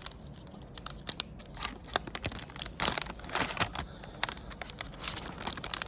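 Chocolate bar wrapper being opened, with irregular crinkling, rustling and tearing.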